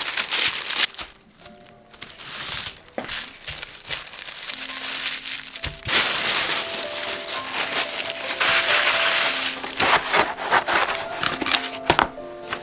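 Wrapping material, clear plastic sleeves and white tissue paper, crinkling and rustling in handling as a small order is packed into a flat cardboard mailer box, with quiet background music underneath.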